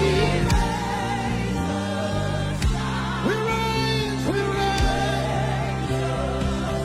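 Live gospel worship music: voices singing long held, sliding lines over a steady keyboard and bass bed, with occasional drum hits.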